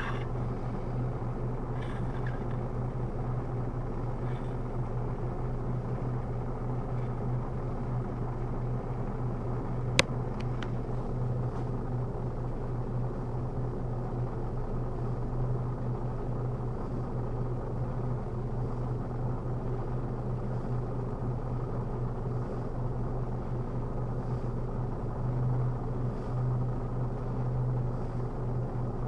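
Steady low hum with one sharp click about ten seconds in.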